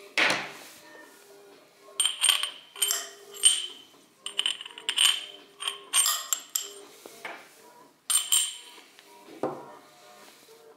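Clicks, clinks and scraping as the threaded parts of a Gw UG 58 rifle grenade (nozzle, gas distributor, safety valve) are handled and screwed together. There are several sharp knocks spaced through it, the loudest near the start and about two seconds in. Quiet background music plays underneath.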